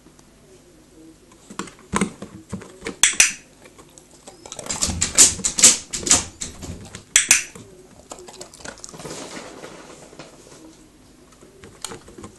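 Dog's claws tapping and scrabbling on wooden floorboards and spiky rubber paw pods as it steps about, with a few short grumbling vocal noises from the dog.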